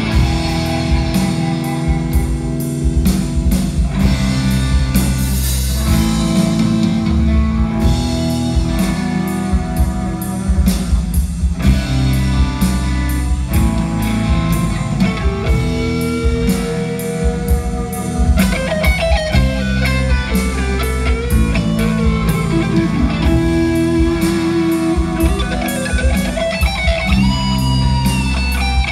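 Progressive metal band playing live, with distorted electric guitars, bass guitar and drum kit in an instrumental passage. About halfway through, a lead guitar line with pitch bends rises above the band.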